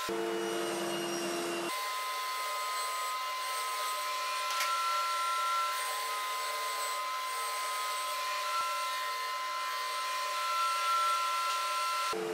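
Table saw running steadily as plywood panels are pushed through it. A standard blade, not a dado set, cuts the slide grooves one shallow pass at a time.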